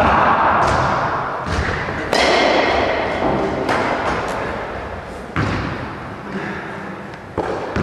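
A series of sharp thuds and knocks, about seven, irregularly spaced, each echoing in a large gym hall.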